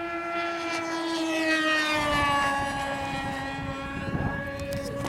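Radio-controlled model airplane flying a fast pass: its motor gives a steady high whine that grows louder and then drops in pitch as the plane goes by, about two seconds in, and holds at the lower note afterwards.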